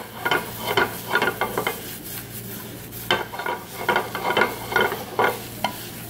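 Sliced mushrooms and onion being stir-fried in a pot, turned with a metal spoon in irregular scraping strokes over a light sizzle.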